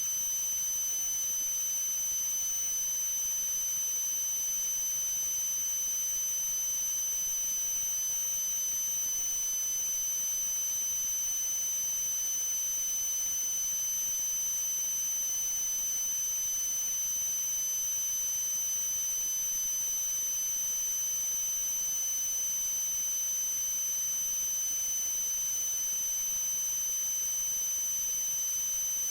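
A steady, high-pitched electronic tone with a higher overtone, over an even hiss, unchanging throughout.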